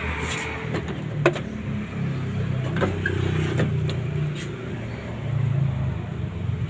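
A few sharp clicks and knocks from a removed plastic headlight unit being handled, the loudest about a second in, over a steady low vehicle-engine hum.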